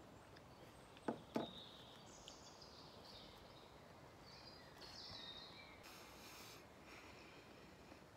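Faint bird calls in near-quiet surroundings: several short chirping phrases through the middle, with two sharp clicks close together about a second in.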